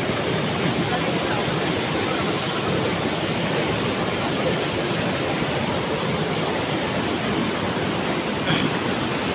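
Floodwater rushing across a road in a fast current, a steady, unbroken rushing noise.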